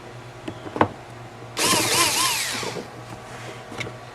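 Power screwdriver backing out a Phillips screw: a few light knocks, then about a second in the motor whines, its pitch pulsing up and down three times with the trigger before winding down as it is released.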